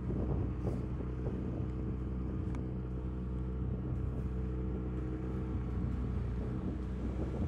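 Outboard motor on a small inflatable boat running steadily at a constant speed.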